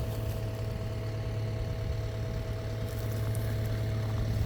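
Diesel engine of the machine carrying the mulcher head idling, a steady low hum.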